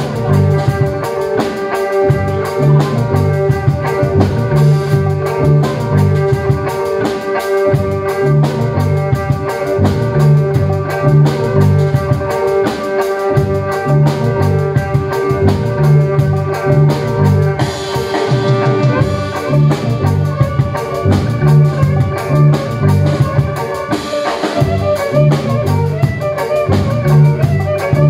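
Live instrumental music from a drum kit and a violin played through effects pedals and an amplifier. There is busy drumming over a repeating low bass figure, and a long held note stops about eighteen seconds in.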